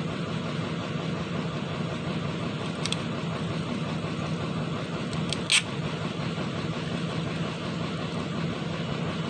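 Excavator engine running steadily at idle, a constant low hum. Two short sharp clicks sound over it, a faint one about three seconds in and a louder one about five and a half seconds in.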